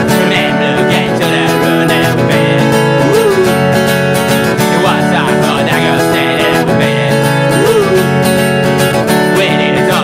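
Acoustic guitar strummed steadily in an acoustic punk song, with a short note that bends up and back down twice.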